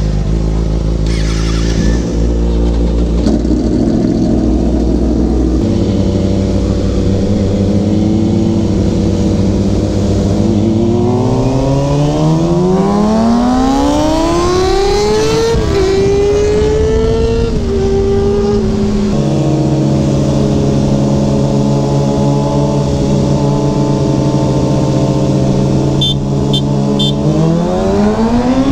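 Kawasaki ZX-6R sport bike's inline-four engine running under way. It holds a steady note for about ten seconds, then revs up hard for about five seconds, eases to a lower steady note, and pulls up again near the end.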